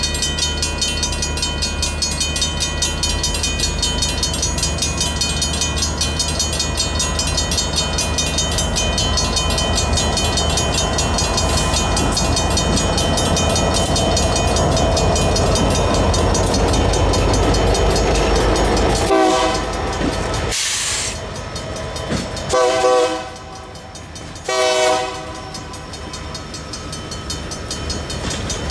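Griswold mechanical crossing bell ringing fast and steadily over the low rumble of an approaching Union Pacific EMD GP40-2 freight locomotive. About two-thirds of the way in, the locomotive's horn sounds three blasts as it nears the crossing, the first the longest.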